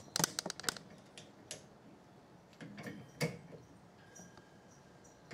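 Small metal clicks and clinks of a torque wrench and its adapters being handled and fitted: a quick run of clicks at the start, a few scattered ones, and a louder click a little after three seconds.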